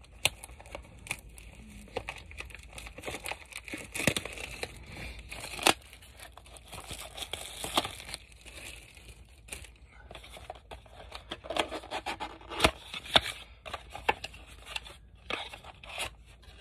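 Hands tearing open a cardboard box of trading-card packs. Cardboard rips and packaging crinkles, with sharp snaps and clicks at irregular intervals throughout.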